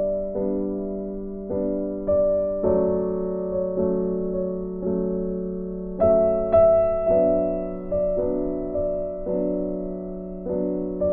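Slow, gentle background piano music: chords and single notes struck about once a second, each left to ring and fade.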